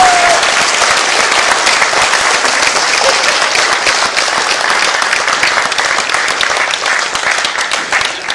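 Audience applauding steadily, a dense patter of many hands clapping, easing off near the end.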